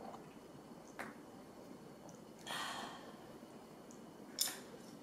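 A person's breathy sigh of relief after a sip of a drink, about half a second long, with a light tap about a second in and a sharp tap of tableware near the end.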